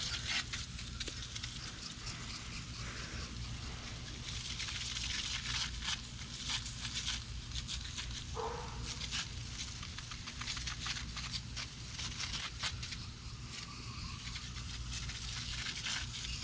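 Foaming coil cleaner sprayed onto air-conditioner condenser coils in hissing spurts, with the foam crackling and fizzing as it expands between the fins.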